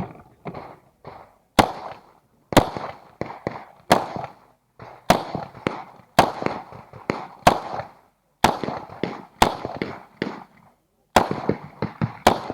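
Uzi Pro pistol firing a string of single shots, about ten loud reports roughly a second apart, with fainter pops in between.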